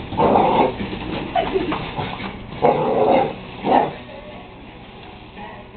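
Dog barking excitedly at a remote-control car: one bark at the start and two more close together about three seconds in.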